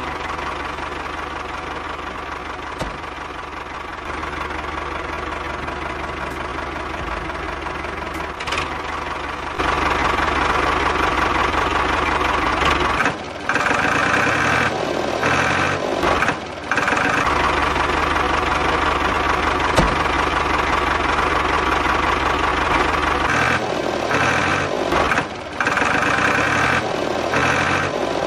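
Tractor engine running with a steady knocking beat, a sound effect laid over a toy tractor. It gets louder about a third of the way in and cuts out briefly a few times.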